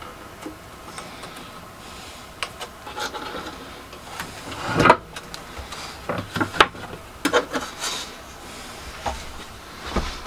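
Thin wooden boards being handled, slid and set down on a benchtop sander's table: scattered light knocks, scrapes and rubs, the loudest knocks about five and six and a half seconds in.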